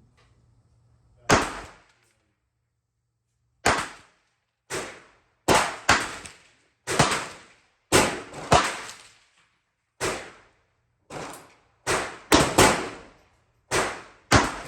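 Taurus TX22 semi-automatic .22 LR pistol firing a string of about fifteen sharp shots at uneven intervals, some close pairs half a second apart and others up to two seconds apart.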